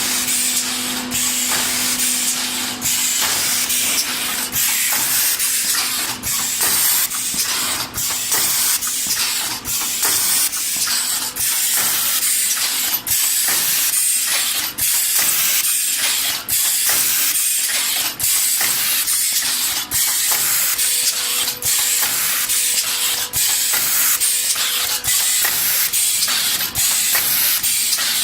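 Paper plate forming machine running, a steady loud hiss broken by a short regular dip a little more than once a second as it cycles through its pressing strokes.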